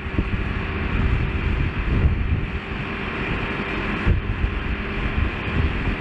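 Large Caterpillar crawler bulldozer's diesel engine running steadily as the machine tracks through shallow floodwater, with wind buffeting the microphone.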